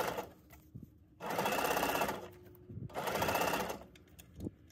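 Janome sewing machine running a straight stitch in two short bursts of about a second each, with a brief pause between them.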